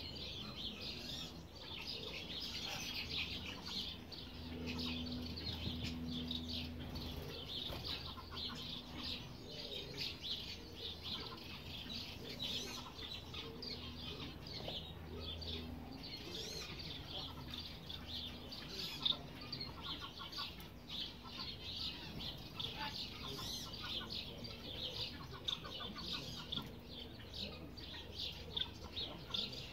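Dense, continuous high-pitched chirping and peeping from several birds, over a low steady hum.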